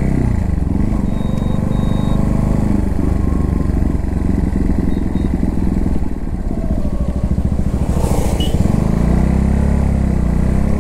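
Bajaj Pulsar NS160's single-cylinder engine running as the motorcycle rides along, heard from the rider's seat. Its note drops just after the start and firms up into a steady note near the end.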